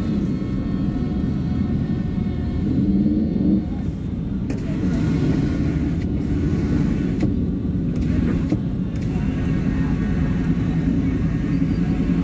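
Steady low rumble of dense street traffic, with faint voices mixed in.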